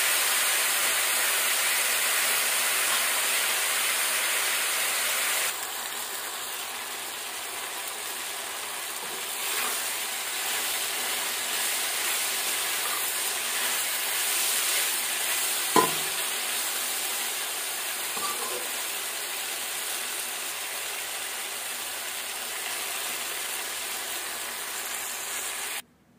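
Onions, capsicum, tomatoes and garlic sizzling in hot mustard oil in a kadai while a metal spatula stirs them. The sizzle drops noticeably about five seconds in, a single sharp knock comes about halfway through, and the sound cuts off suddenly just before the end.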